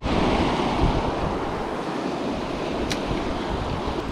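River rapids rushing over rocks, a steady loud wash of water, with wind buffeting the microphone. A single brief click about three seconds in.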